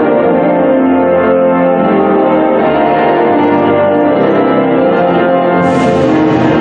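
Instrumental music with long held chords that change every second or so.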